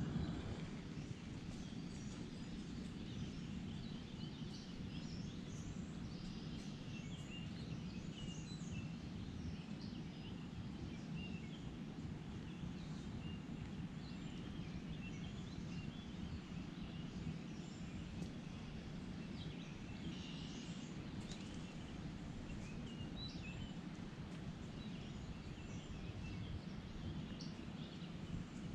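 Many birds chirping and singing in short scattered phrases over a steady low rushing of rain falling in the woods.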